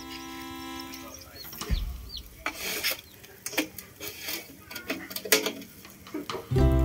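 Metal tongs clicking and scraping on a wire grill rack as whole salted fish are turned over charcoal, in irregular sharp clicks. Background music fades out about a second in and comes back loudly near the end.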